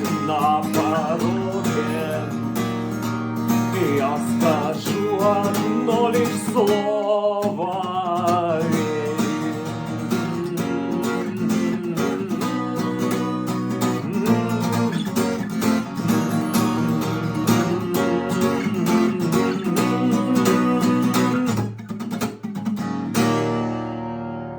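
Acoustic guitar strummed in a steady rhythm, playing the song's instrumental ending. The playing stops abruptly near the end.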